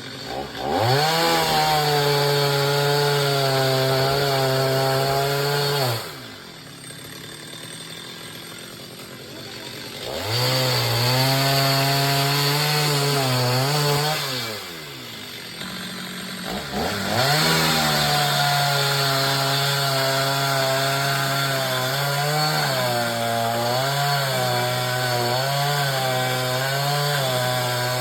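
Two-stroke chainsaw revved to full throttle three times, cutting into coconut palm wood, and dropping back to a lower idle between cuts. The pitch wavers in the long last cut as the chain takes load.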